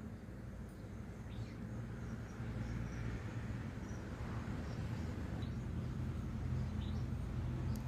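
Outdoor ambience: a steady low motor-like hum that grows louder about two and a half seconds in, with a few short, scattered bird chirps over it.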